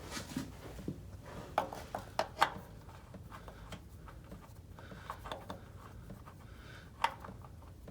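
Scattered sharp clicks and light taps of hand tools and parts being handled, with a quick cluster about two seconds in and a single click near the end.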